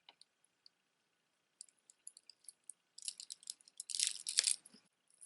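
Costume jewelry being handled: a few light clicks of plastic beads, then a denser run of clicking and rattling from about three seconds in that stops just before the end.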